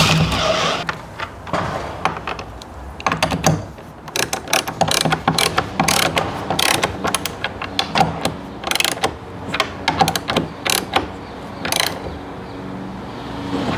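A Metabo cordless drill whirring into the timber door frame, stopping just after the start. It is followed by a long run of irregular sharp clicks and knocks from hand work on the frame and door fittings.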